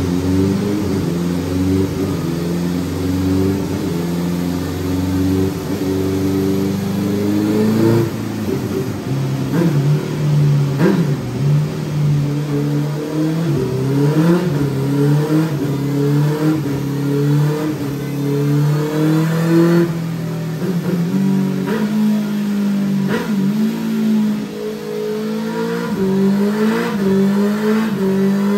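Honda CB650F's inline-four engine, through a full Black Widow exhaust with a stubby silencer and baffle, running fairly steadily for the first several seconds, then revved in repeated short throttle blips with the pitch rising and falling.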